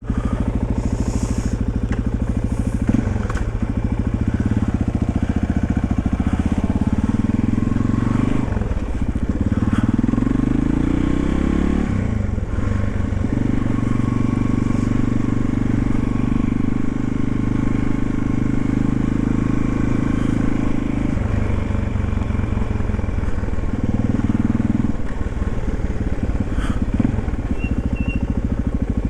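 1991 Yamaha XT350's single-cylinder four-stroke engine running on a ride, its pitch rising and falling several times with throttle and gear changes.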